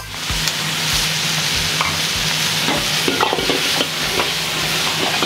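Lobster pieces sizzling in hot oil in a wok while a metal ladle stirs them, clanking and scraping against the pan several times, most often in the middle. A steady low hum runs under the sizzle.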